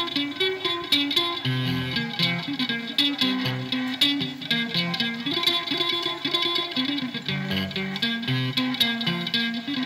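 Background music led by plucked strings, with a bass line moving underneath.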